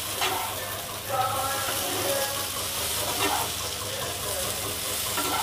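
Ridge gourd strips with poppy seeds frying in mustard oil in a non-stick pan, sizzling steadily while a wooden spatula stirs them, with a few light strokes of the spatula.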